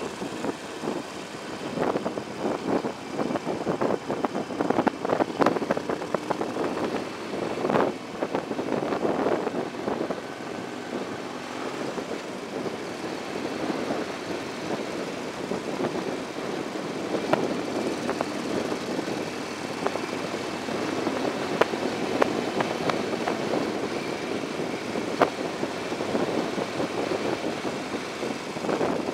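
Motorcycle riding in traffic: steady engine and road noise mixed with wind buffeting the microphone, gustier in the first ten seconds or so, with a few short knocks scattered through.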